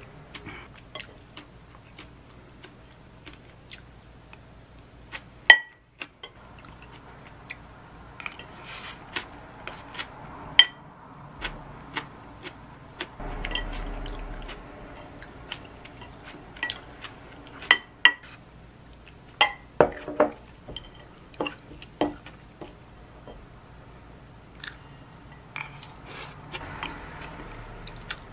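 A spoon clinking and scraping against a ceramic bowl as rice with bean sprouts is mixed and eaten, with quiet chewing between the clinks. There is a sharp knock about five seconds in and a longer stretch of scraping about halfway through.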